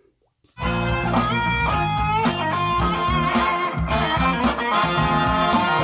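Recorded band music led by electric guitar, starting suddenly about half a second in and played over King Sound King electrostatic speakers, heard in the room.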